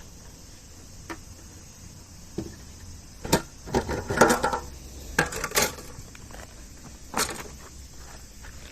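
Knocks and clatters of hard objects being handled, bunched between about three and six seconds in, with one more knock about seven seconds in.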